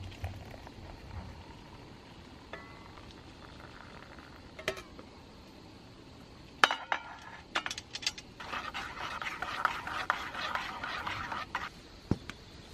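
A spoon clinking against a metal camping mug, then stirring quickly for about three seconds near the end, mixing powdered red ginseng and yam porridge into liquid.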